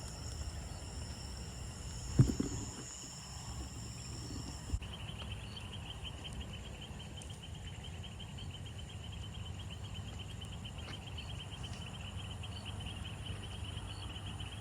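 Night insects calling: a steady high-pitched buzz that gives way, about five seconds in, to a rapid pulsing trill that carries on. A single thump comes about two seconds in.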